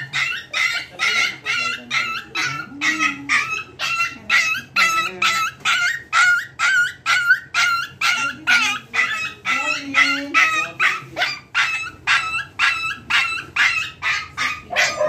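Shih Tzu puppy yelping and crying non-stop in distress at its vaccination, short high-pitched cries about three a second.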